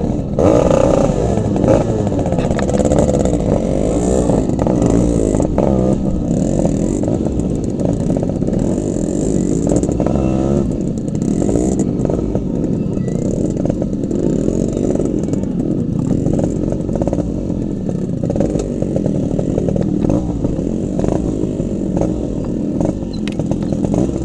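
Two-stroke motorcycle engines running on a rough dirt trail, the engine note rising and falling with the throttle, with scattered knocks and clatter from the bike over the bumps.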